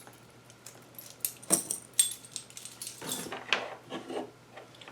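Keys and small metal tools on a split key ring jangling and clinking as they are handled, in scattered bursts of sharp clinks, with a cluster about one and a half to two seconds in and more from about three seconds in.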